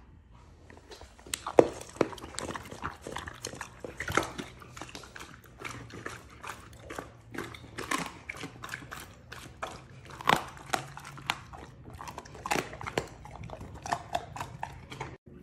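Cane Corso eating raw food, chicken drumsticks and raw meat, from a bowl: irregular sharp crunches and chewing, a few a second.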